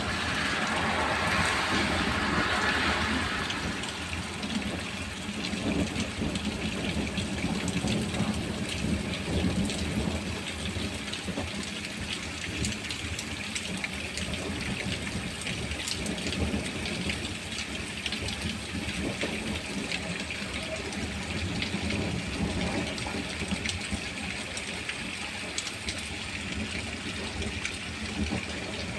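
Heavy summer rain pouring steadily, with many close drops tapping and a low rumble underneath.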